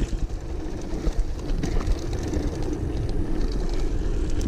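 Wind rushing over the camera microphone and mountain-bike tyres rumbling on a dirt trail during a fast descent, with a few small clicks from bumps and gravel.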